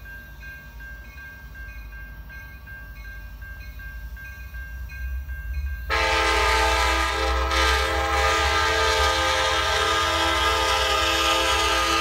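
A grade-crossing bell dings rapidly, about two and a half strokes a second, over the low rumble of an approaching Amtrak diesel locomotive. About six seconds in, the locomotive's multi-chime air horn sounds one long, loud chord.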